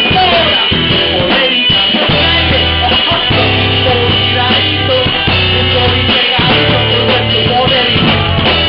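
Live salsa-hip-hop band playing: trumpet, trombone and violin over a steady bass line and drums, with a rapper's voice on the microphone.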